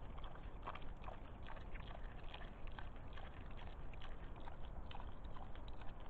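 Wild boar rooting and feeding with its snout in the soil: faint, irregular crunching and chewing clicks over a steady low rumble.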